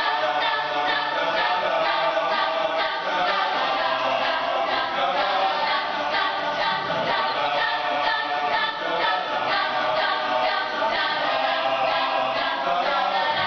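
Mixed show choir of female and male voices singing together.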